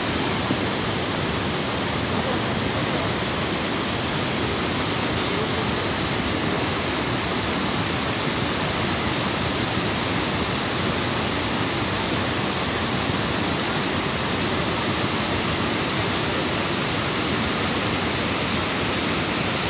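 Steady rushing of a cold lahar flood, a fast muddy volcanic debris flow pouring over a rocky riverbed.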